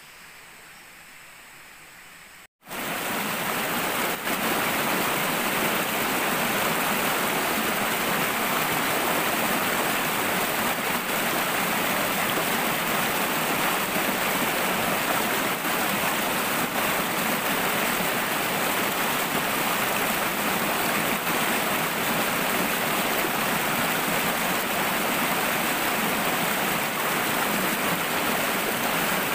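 Quiet forest ambience, then, after a sudden cut about two and a half seconds in, a shallow rocky stream rushing steadily over boulders, loud and even.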